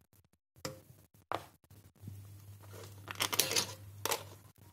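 Light handling noises: a few short knocks, then a rustling, scraping burst about three seconds in, over a low steady hum.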